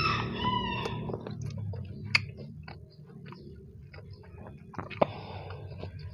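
Close-up chewing and eating sounds: wet mouth noises and scattered small clicks, with two sharp clicks about two seconds and five seconds in. A rooster crow trails off in the first second.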